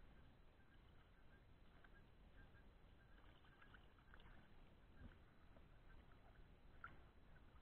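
Faint lake water lapping and small splashes close to the microphone around a swimmer at the surface, with scattered drip-like ticks over a low rumble.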